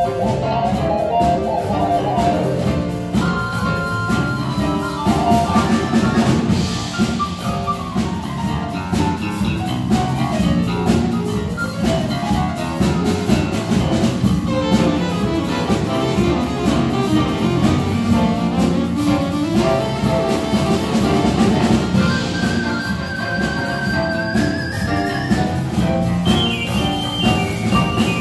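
Jazz big band playing a tune live, with saxophones, brass, piano and drums together. About three-quarters of the way through, a held high note slides slowly upward over the band.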